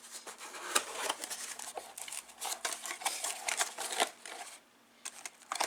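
Rustling packaging and small parts clicking as a soldering iron kit is unpacked by hand, with a brief lull near the end and then a few more clicks.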